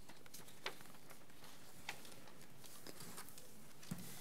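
Quiet meeting-room tone: a steady faint hiss with a few short clicks about a second apart, the last one near the end with a duller knock.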